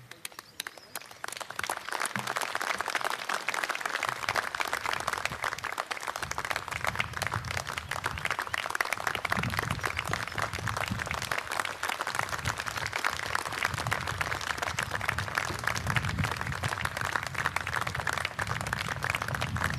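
Audience applause: many people clapping, building up over the first two seconds and then holding steady.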